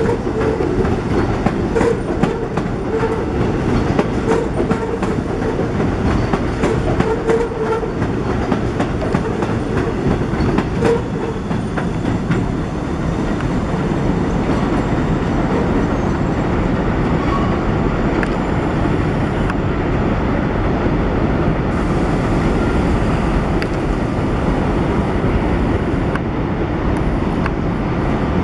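NYC Subway 1 train's R62A cars running on the elevated steel structure: wheels clatter over the rail joints with a rumble and short squeals for the first ten seconds or so, then a steadier rumble.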